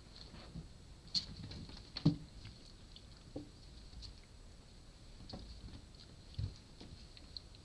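Japanese Bobtail kittens scampering and wrestling on a tile floor: light pattering paw steps and scuffles with scattered taps and a few soft thumps, the sharpest about one and two seconds in.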